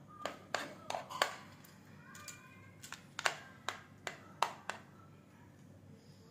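Metal spoon clinking and tapping against a plate as cooked rice is scooped off it: about ten sharp clicks over the first five seconds, then quiet.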